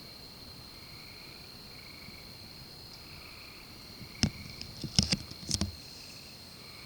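Night insect chorus: a steady high-pitched trill, with a lower buzzing call that swells and fades about once a second. Near the middle, a quick cluster of five or six sharp clicks and knocks.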